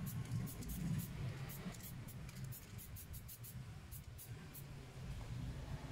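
Shogun aerosol spray paint can spraying in short, quick bursts of hiss, several a second, that stop about four and a half seconds in.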